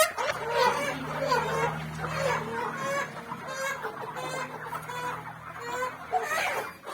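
Chickens clucking, many short calls one after another, with a low steady hum underneath for most of it.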